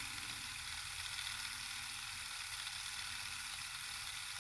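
3D-printed magnet pulse motor running steadily at high speed: a continuous hiss with several faint steady whines over a low hum.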